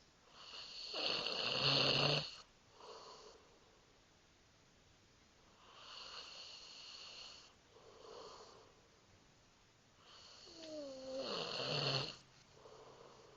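Snoring in three slow breath cycles, each a longer drawn-out snore followed by a short, softer one. The loud snores come about a second in and about ten seconds in, and the second opens with a falling whistle-like tone.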